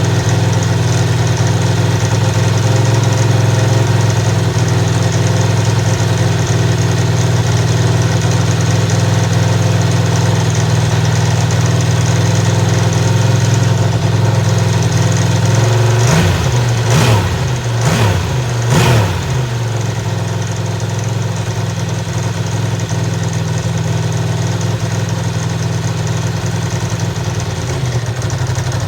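1999 Ducati ST4's 916 cc V-twin idling on its stock exhaust, warming up on its first start after sitting all winter. About two-thirds of the way through it is given three quick throttle blips, each rising and falling in pitch, then settles back to a steady idle.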